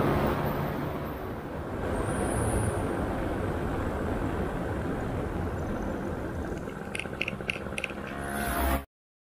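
Wind rumbling and buffeting on an action camera's microphone, with four light clicks about seven seconds in. The sound cuts off abruptly near the end.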